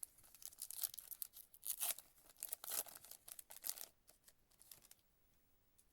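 Foil trading-card pack wrapper being torn open and crinkled, a run of crackling rips for about four seconds, then a few small clicks.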